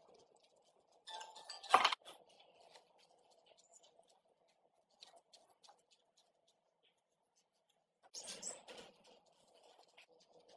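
Workshop handling noises: a sharp knock about two seconds in, and a short clatter a little before the end, with faint scraping and small taps in between.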